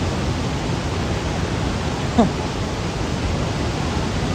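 Steady, even rushing noise of typhoon weather, with a short falling voice sound about two seconds in.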